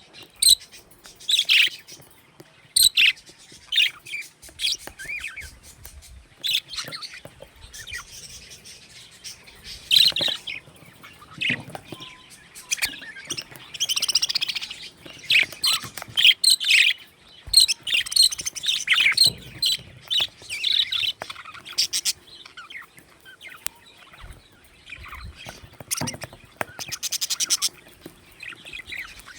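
Budgerigars chirping and chattering in short, irregular high calls, with a quick rattling run of notes near the end.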